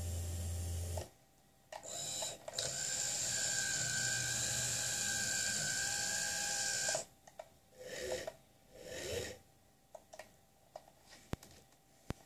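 Small electric motors of a Heljan model container gantry crane whirring as the spreader lifts a container. A short run near the start, a steady whine for about five seconds, then several brief motor bursts and a few clicks.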